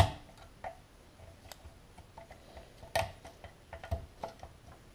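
Irregular light metal clicks and taps as a screwdriver and snap-ring pliers work the large snap ring into the bore of an ATV rear brake master cylinder, with a sharper click right at the start and another about three seconds in.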